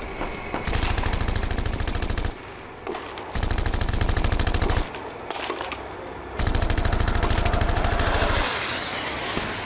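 Three long bursts of military automatic gunfire, each lasting about one and a half to two seconds, with short gaps between them.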